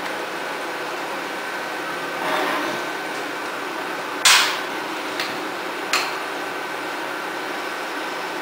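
War-era Kearney & Trecker 2H milling machine running with a steady hum. About four seconds in there is one loud, sharp metallic knock, followed by two lighter knocks.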